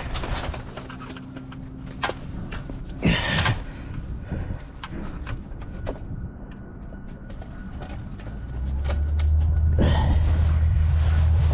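Scattered clicks and knocks of hand tools and metal and plastic parts being worked loose on a car's front end. About eight seconds in, a loud, steady, very low drone sets in.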